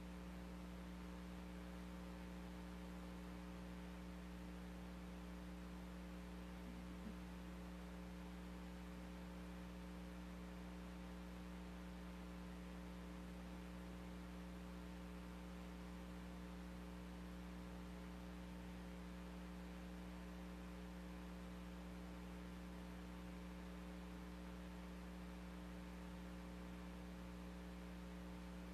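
Steady low electrical hum over faint hiss, unchanging throughout, with one faint tick about seven seconds in.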